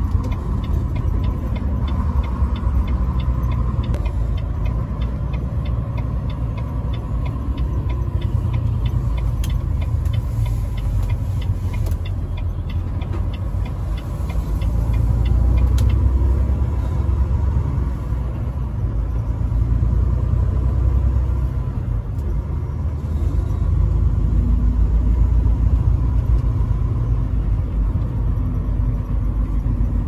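Semi truck cab at road speed: a steady low rumble of engine and road noise that swells and eases a little. A light, fast, even ticking runs through the first half and then stops.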